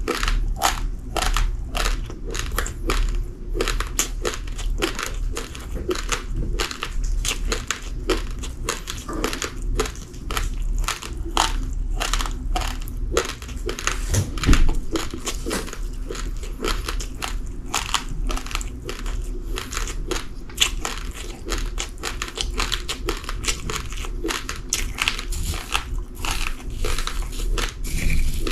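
Raw, uncooked rice grains being crunched and chewed between the teeth, a rapid run of sharp crunches, several a second, going on steadily.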